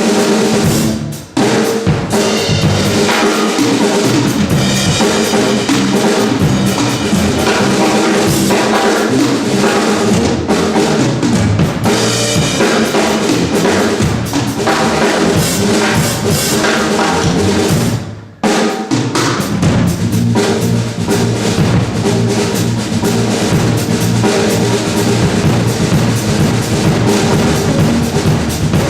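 Live funk trio of electric guitar, bass guitar and drum kit playing a tight groove with busy kick and snare. The band stops dead twice, briefly, about a second in and about 18 seconds in, then comes back in.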